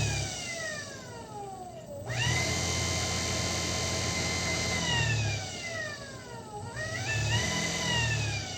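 Unloaded electric motor run by an Evnetics Soliton 1 motor controller, whining as it speeds up and slows with the throttle pot. It winds down, spins up sharply about two seconds in, holds, winds down again, then spins up once more near the end before falling away. The controller is working again after its shorted IGBT was replaced.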